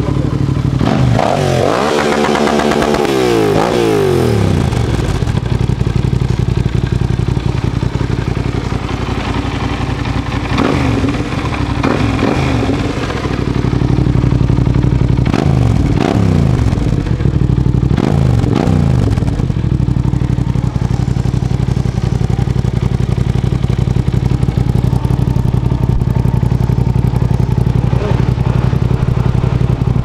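2003 Yamaha TDM 900's parallel-twin engine through a Race Guns aftermarket exhaust. Early on the revs rise and fall as the bike rides up. It then idles with several quick throttle blips around the middle and settles into a steady idle.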